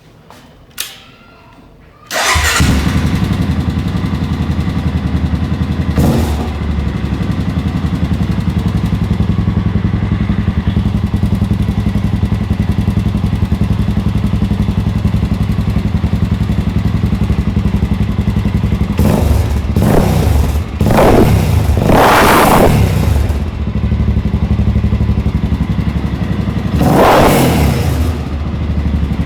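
Honda NX4 Falcon's single-cylinder engine, breathing through an aftermarket RS5 exhaust, starting up about two seconds in and settling into a steady, rhythmic idle. It is revved briefly about six seconds in, several times in quick succession past the middle, and once more near the end.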